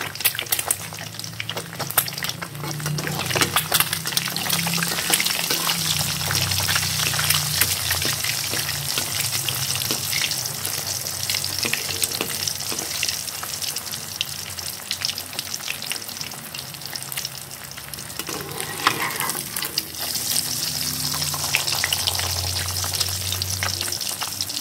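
An egg frying in hot oil in a wok: a steady sizzle with a dense crackle of spitting oil, and a spatula moving in the pan at times.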